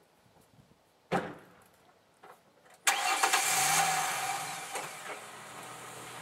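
A car door shuts with a single thump about a second in. About halfway through, the Ford Mustang's engine starts, revs up briefly and settles into a steady idle.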